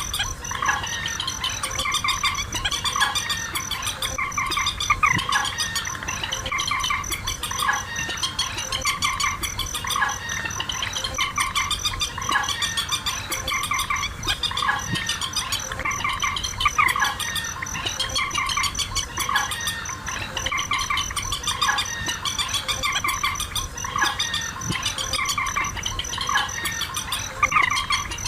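Recorded bird calls played as a trapping lure: many short calls repeating and overlapping, with no pause. Under them runs a steady, fast-pulsing high insect trill.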